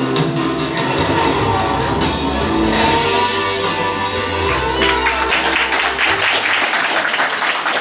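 Music playing loudly, then audience applause starting about five seconds in and taking over as the music fades.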